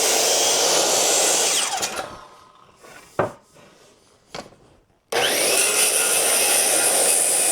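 Power saw cutting white oak sill stock in two cuts. The first cut dies away about two seconds in and is followed by a couple of light knocks. A second cut starts abruptly about five seconds in.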